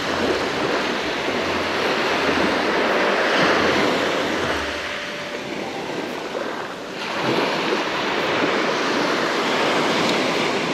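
Small waves breaking and washing up a sandy beach, the rush swelling twice, with some wind on the microphone.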